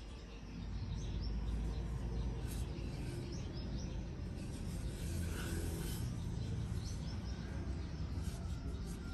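Steady outdoor background noise with a low rumble, and a few faint bird chirps between about one and four seconds in.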